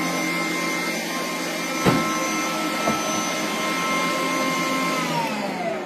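Electric mixer whipping egg whites for meringue, running at a steady high speed with a really loud motor whine. A knock comes about two seconds in. Near the end the whine falls away in pitch as the mixer is switched off and spins down.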